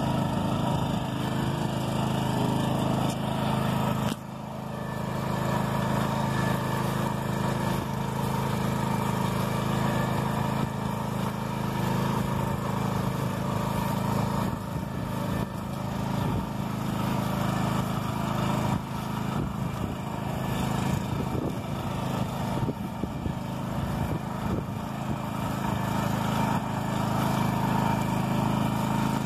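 Engine of a BCS two-wheel walking tractor running steadily under load as it pulls a weighted roller crimper across a rye stand. It dips briefly about four seconds in, then carries on.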